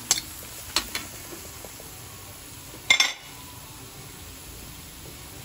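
Metal spatula clinking against a stainless steel wok while chicken sautés: a few light clicks in the first second and one louder clank about three seconds in, over a faint steady sizzle.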